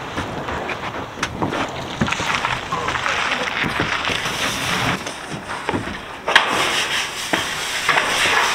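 Handling long ribbed sheet-metal panels at an enclosed cargo trailer: knocks and rattles of the metal sheets, footsteps on a plywood loading ramp, and wind on the microphone. A sharp knock comes about six seconds in.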